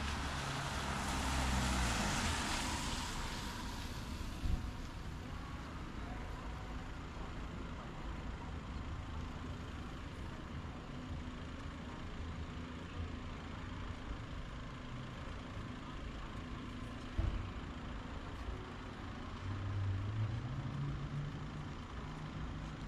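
Street traffic: engines of passing road vehicles with a steady rumble, a loud hiss in the first few seconds, and two sharp knocks. Near the end an engine rises in pitch as a vehicle accelerates.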